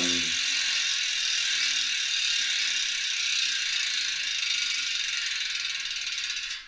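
DT Swiss 240 hub's star-ratchet freehub buzzing as the wheel spins freely, a loud, steady, very fast clicking that stops near the end.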